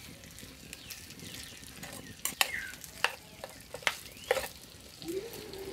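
Metal spoon stirring diced potatoes and chorizo in a clay cazuela, scraping and clicking sharply against the pot several times, over a faint steady sizzle of frying.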